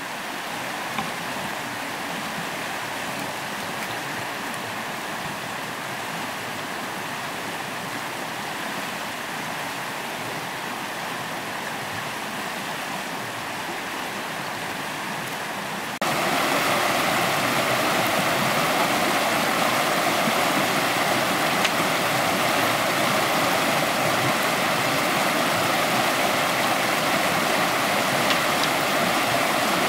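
Steady rush of flowing water. It jumps abruptly louder a little over halfway through and stays steady after that.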